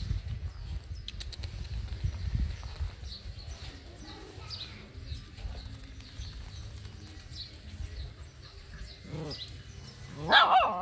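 Small birds chirping now and then over a low rumble, with a short, loud, voice-like cry near the end.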